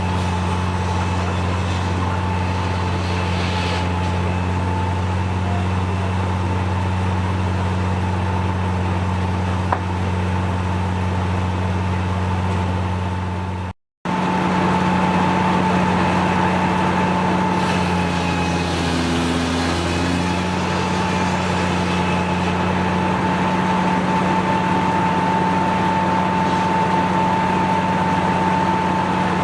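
Sawmill driven by a Case steam engine running steadily, a constant low hum with a steady higher whine above it. The sound drops out for a moment about halfway through.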